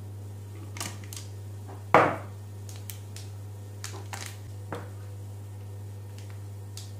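Spatula scraping and tapping sticky choux pastry dough out of a stainless steel pot into a piping bag held in a glass, a string of light clicks and knocks. There is one much louder knock with a short ring about two seconds in, as the pot goes down on the wooden board. A steady low hum sits underneath.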